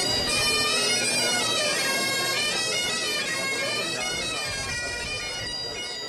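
Bagpipes playing a tune, getting gradually quieter toward the end.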